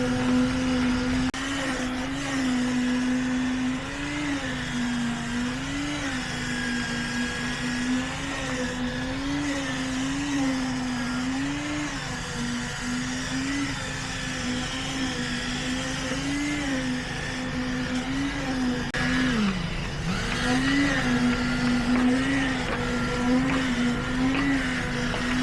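A motor runs steadily with a strong hum that wavers up and down in pitch every second or two, dipping sharply once, about three quarters of the way through, before picking up again.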